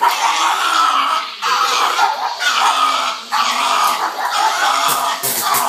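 SodaStream soda maker carbonating a bottle of water in several loud hissing bursts of about a second each as its top is pressed repeatedly. A pug vocalizes at the machine alongside it.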